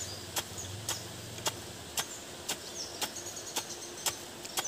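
A long wooden pestle pounding peanuts in a stone mortar: sharp, even knocks about twice a second.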